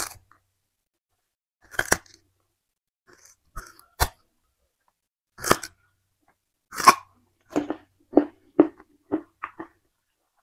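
Peeled sugarcane being bitten and chewed close to a lapel microphone. Single crisp crunches come every second or two, then a quicker run of chews, about two a second, over the last few seconds.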